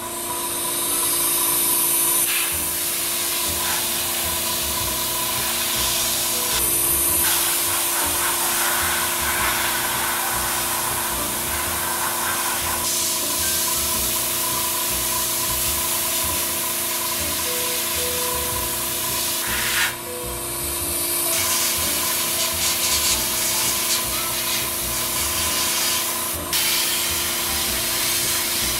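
A Paasche H single-action airbrush hissing steadily as it sprays thinned ink at about 25 PSI, with the steady hum of an Iwata Smart Jet compressor underneath. The hiss breaks off briefly about twenty seconds in.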